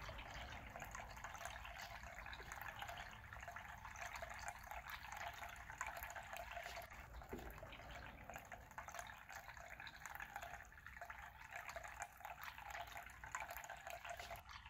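Faint, steady hiss of background noise with a fine crackling texture.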